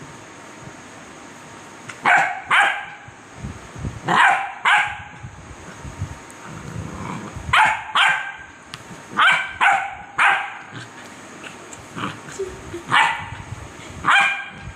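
Puppy barking in short, high-pitched yaps, often two in quick succession, about a dozen in all starting about two seconds in: excited play barking.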